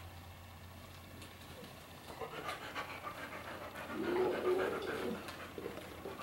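A dog panting, starting about two seconds in, with a short held whine-like tone around four seconds in.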